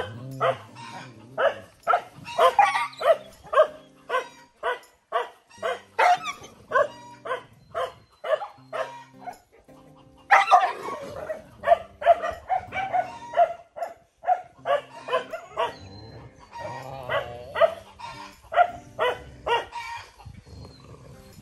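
Dogs barking over and over in short, sharp barks, about two or three a second, with a denser run of calls a little before the middle.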